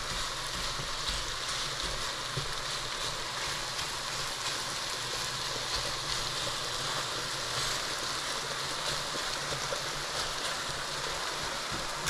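Thinly sliced beef sizzling steadily in hot vegetable oil in a pot, an even frying hiss while the meat sears.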